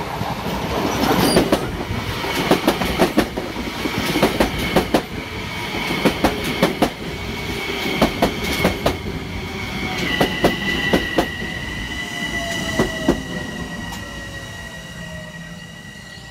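Metro-North commuter train passing close by, its wheels clicking sharply and irregularly over rail joints, with a steady high whine that steps down in pitch about ten seconds in. Near the end the train fades away with slowly falling tones as it heads into the station.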